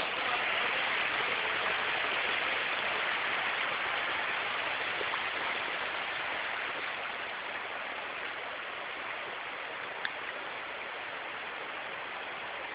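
Fast mountain stream rushing over rocks, a steady, even roar of water, a little louder in the first few seconds. A single small click about ten seconds in.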